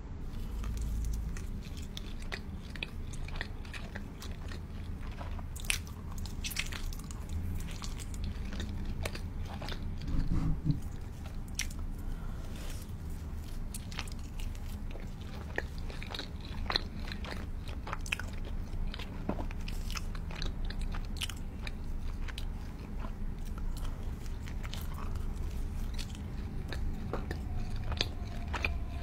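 A person biting and chewing pizza close to a microphone: many short, crisp crackles of crust amid wet chewing.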